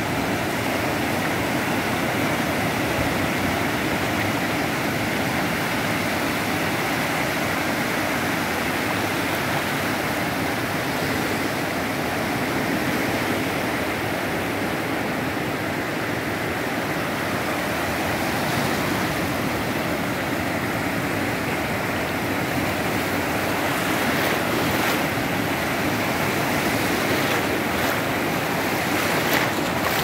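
Ocean surf: small waves breaking offshore and washing up a shallow sandy beach, a steady continuous wash.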